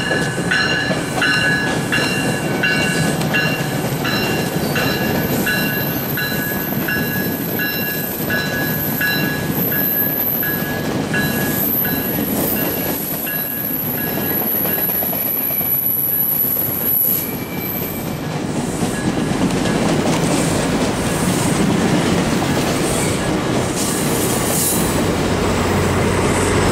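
GO Transit bilevel passenger coaches rolling past on curving track: a steady rumble of steel wheels on the rails, with high squealing tones from the wheels over it for the first half.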